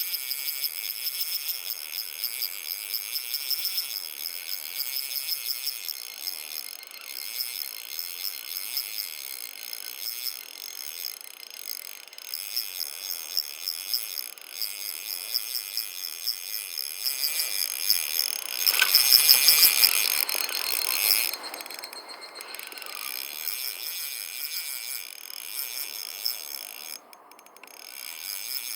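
Cicadas shrilling in a dense, fast-pulsing chorus, high in pitch, swelling louder for a couple of seconds about two-thirds of the way in.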